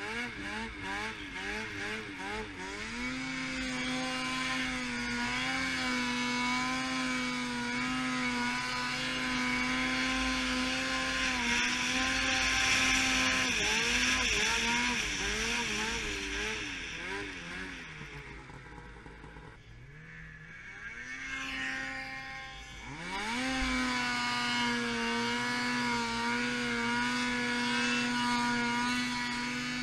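Snowmobile engine under way through deep snow: the throttle is blipped up and down for the first few seconds, then held at high revs. About two-thirds through it eases off and goes quieter, then revs back up in a rising sweep and holds steady again.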